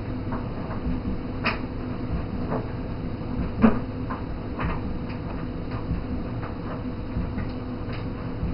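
Soft, irregular clicks about once or twice a second over a low steady hum and rumble, one click louder a little past the middle.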